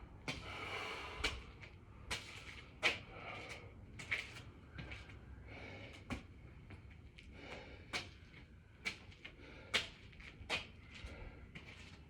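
Irregular knocks and thuds, roughly one a second, of hands and feet landing on the floor during six-count burpees, with heavy breathing.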